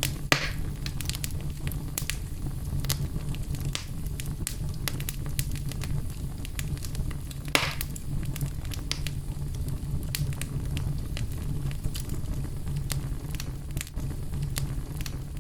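Wood fire in a fireplace crackling steadily over a low rumble of flames, with two sharper pops: one just after it starts and one about halfway through.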